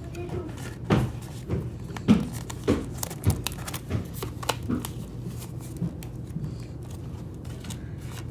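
Pokémon trading cards being handled and sorted into piles: irregular light taps and clicks as cards are set down and shuffled.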